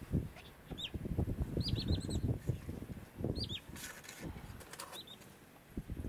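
Small birds chirping in short, high, arched notes, in little clusters of two to four about every second, over a low, uneven rumble.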